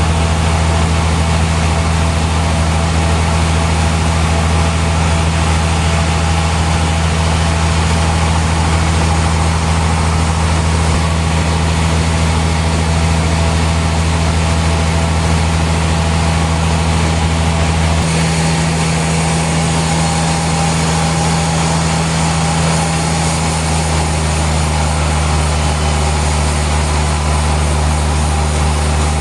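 Sawmill machinery running steadily, a continuous low hum with no cut being made. The hum shifts abruptly about two-thirds of the way through.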